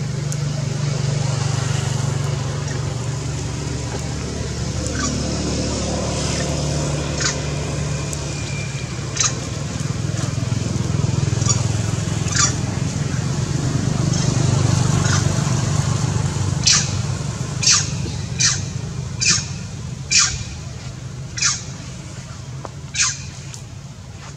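Outdoor ambience: a steady low rumble, with a run of short, sharp, high chirps about once a second through the second half.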